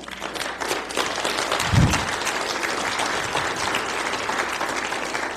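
Audience applauding steadily, a dense patter of many hands that tails off just after the end. There is a brief low sound about two seconds in.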